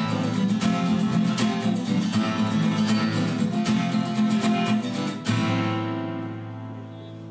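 Two acoustic guitars strumming chords, closing on a final chord about five seconds in that rings out and slowly fades.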